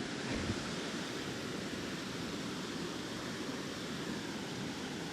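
Steady rush of a small river flowing over rocks, an even, unbroken hiss of moving water.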